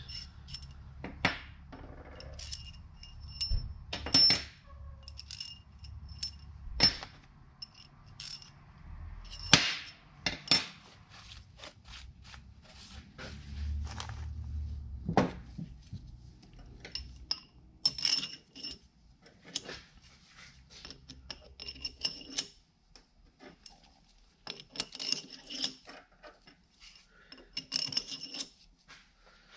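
Long steel tie rods clinking and tapping against each other and the cast hydraulic valve body as they are handled and slid through the valve sections. Scattered clinks, several with a short metallic ring.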